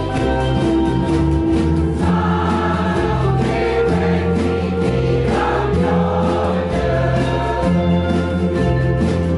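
A large ensemble of ukuleles strumming chords together, with a group of voices singing along.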